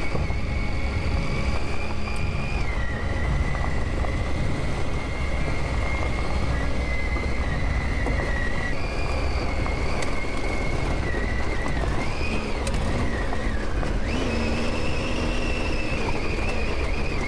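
Adventure motorcycle riding along a gravel track, heard from the rider's helmet: its engine runs with a whine that holds steady and shifts pitch a few times as the speed changes. Under it is a constant low rumble of wind and tyres on loose stones.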